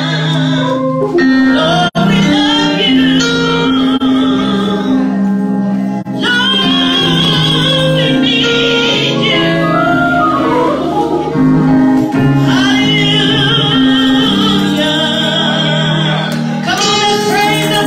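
A woman singing a gospel song into a microphone over the church sound system, over held instrumental chords. The sound cuts out briefly about two seconds in.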